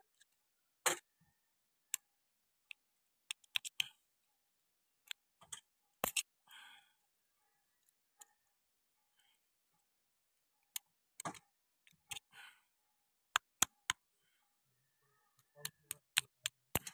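Scattered sharp metal clicks and short scrapes, with quiet gaps, as a screwdriver tip works a steel circlip (lock ring) into its groove on a tractor steering cylinder.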